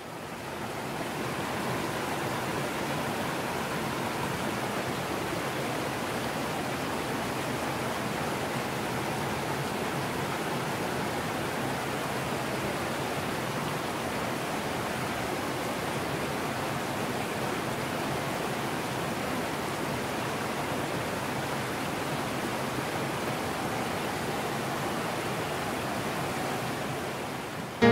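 Small woodland stream running over rocky cascades: a steady rush of water that fades in at the start.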